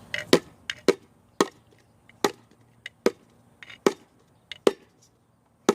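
Repeated sharp, hard knocks of toys being struck: a quick few at the start, then one roughly every second.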